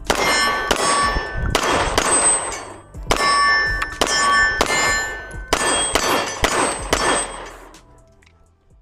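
Metallic clangs with ringing tones, about a dozen strikes in three groups of roughly four, fading out near the end.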